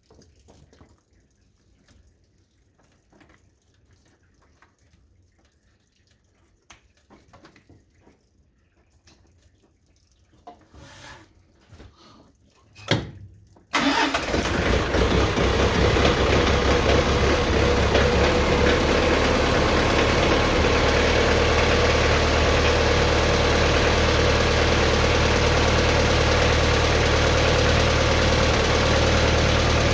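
Quiet handling noises and a couple of brief clicks, then about halfway through the McCormick X1.45 tractor's diesel engine starts abruptly and settles into a steady idle, running a little high at about 1100 rpm.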